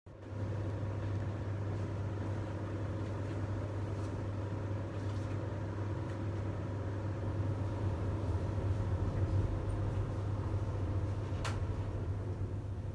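A steady low mechanical hum with a faint rushing haze beneath it, and a single sharp click about eleven and a half seconds in.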